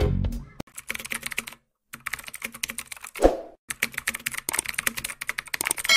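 Computer-keyboard typing sound effect: rapid key clicks in several quick runs with short pauses between, and one heavier thunk about three seconds in. It accompanies text being typed onto the screen.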